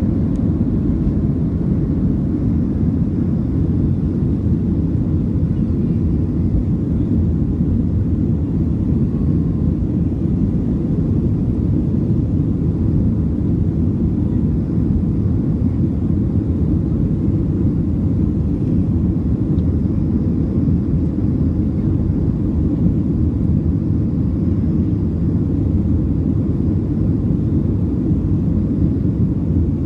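Steady, loud low rumble inside a Boeing 737 passenger cabin in flight: the jet engines and the air rushing past the fuselage, holding an even level with no change in pitch.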